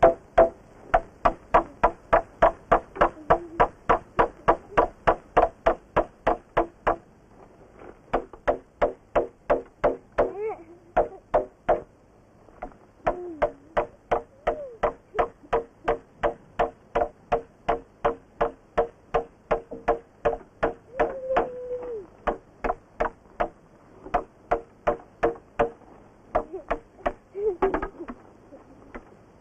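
Rapid, steady knocking on something hollow-sounding, about four knocks a second, with brief stops twice. A few short voice-like sounds come through over it.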